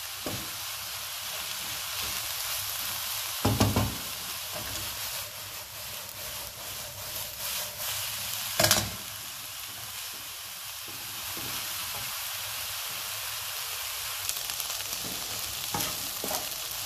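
Eggplant-pulp filling with onion and black olives sizzling steadily as it cooks down uncovered over a high flame in a nonstick frying pan, stirred with a wooden spoon. Twice, a few seconds apart, the spoon knocks sharply against the pan.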